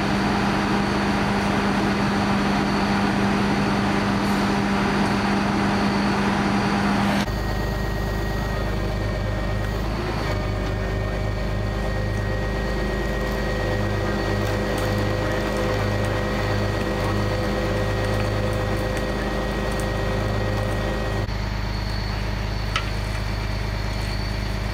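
Steady hum of idling vehicle engines. The pitch and character change abruptly about seven seconds in and again a few seconds before the end.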